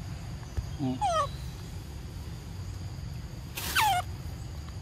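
Macaque calling: two short calls, about three seconds apart, each sliding down in pitch.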